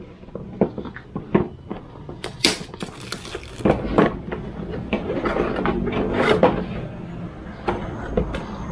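Cardboard box being opened by hand: scraping and rustling of cardboard as the outer box is worked off its inner tray, with several sharp taps and knocks.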